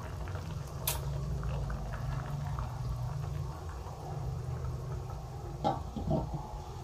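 Coconut-milk broth simmering in a wok, a steady low bubbling. A light click comes about a second in, and a few soft knocks near the end as the wok's lid is set down.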